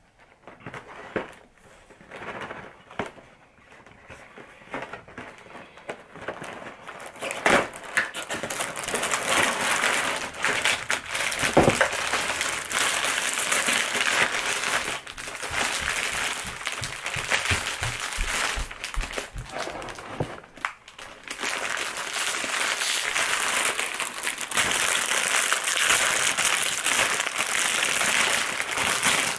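Aluminium foil crinkling and crackling as it is pulled back and crumpled off a foil pan of cookies. A few handling knocks come first, and the crinkling is steady and busy from about seven seconds in.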